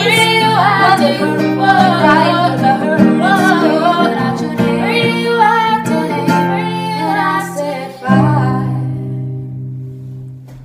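Female voices singing over an acoustic guitar at the close of a song; about eight seconds in, a final strummed chord rings out and fades away.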